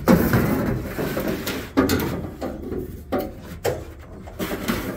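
A metal rod being pulled back out through the car's sheet-metal body cavity, scraping and rattling in a run of irregular scrapes, loudest at the start.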